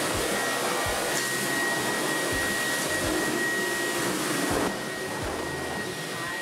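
Cordless stick vacuum cleaner running steadily, a rushing noise with a thin high whine. About four and a half seconds in the rushing gets quieter while the whine carries on.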